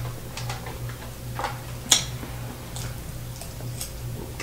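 A fork on a metal sheet pan: faint scattered ticks and one sharp click about two seconds in, over a steady low hum.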